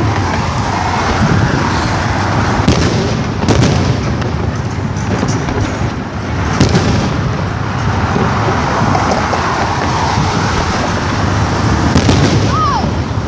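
Fireworks going off: a steady, dense crackling din broken by several sharp bangs, with short whistling fireworks near the end.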